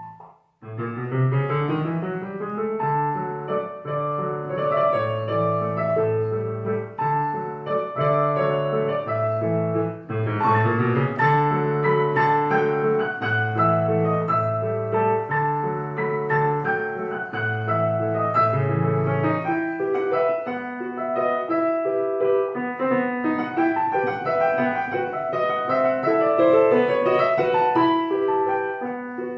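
Piano music: a melody over repeated low bass notes, which stop about twenty seconds in, leaving a lighter texture in the middle and upper range. There is a brief break just after the start.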